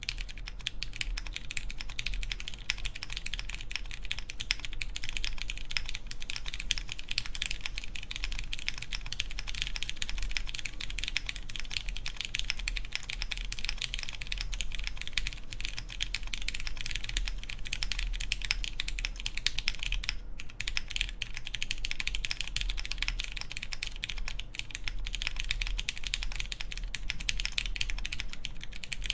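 Continuous fast typing on a mechanical keyboard with lubed Cherry MX Clear tactile switches, a polycarbonate plate and GMK keycaps: a dense, even clatter of keystrokes with a brief pause about twenty seconds in.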